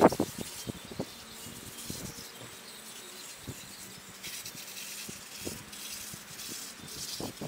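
Aerosol can of foaming coil cleaner hissing in short bursts as it is sprayed onto an air-conditioner condenser coil. A sharp knock right at the start and a few light clicks.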